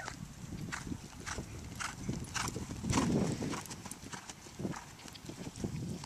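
Hoofbeats of a Holsteiner gelding cantering on a lunge line over dry, dusty dirt, in a regular rhythm of about two strikes a second. A louder low rush comes about halfway through.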